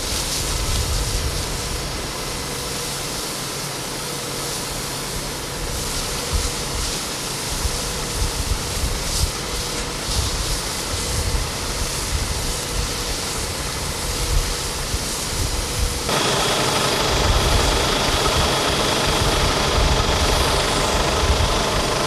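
Fire truck engine running steadily to drive the hose pump, under the hiss of water spray hitting smouldering brush. The sound changes abruptly and gets louder about 16 seconds in.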